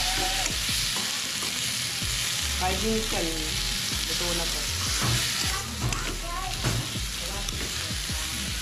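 Chopped tomatoes, onions and garlic sizzling as they are sautéed in a wok over a gas burner, with a metal spatula repeatedly stirring and scraping against the pan.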